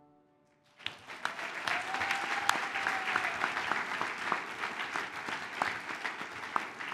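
Audience applauding, the clapping starting about a second in and continuing as a dense patter of many hands.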